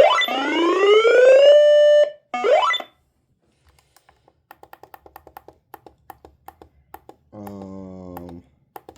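A weather radio's alert siren sounding: a loud tone that rises in pitch, holds steady and cuts off about two seconds in, then a second short rising sweep. It is followed by a run of faint clicks and, near the end, a low buzzing tone lasting about a second.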